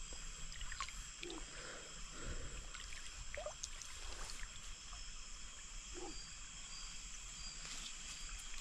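Faint night ambience by a river: steady high-pitched chirring of night insects, with a few faint short sounds scattered through.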